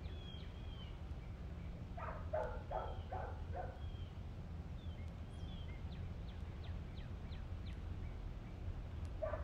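Small birds chirping over a steady low background rumble. A quick run of five louder calls comes about two seconds in, and another run starts near the end.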